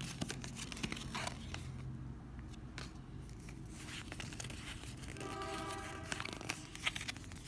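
Pokémon trading cards being handled and flipped through in the hands: soft scattered clicks and rustling of card stock as the cards slide over one another.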